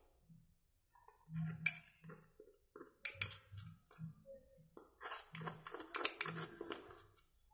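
A metal spoon scraping and tapping a small glass bowl as gram flour is emptied out of it into a mixing bowl: irregular clinks and scrapes, starting about a second in.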